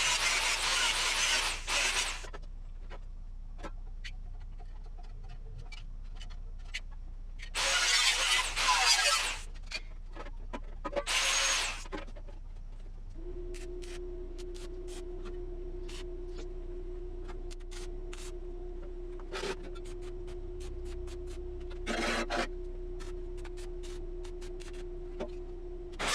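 Workshop tool work: three loud rasping, rubbing bursts among many sharp clicks and taps. From about halfway, a steady hum with a low tone holds on beneath them.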